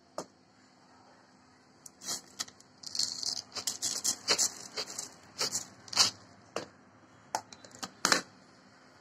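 Fried chira (crisp flattened rice) poured onto a ceramic plate: irregular rattling and crackling clicks as the dry flakes land, starting about two seconds in and stopping a little before the end.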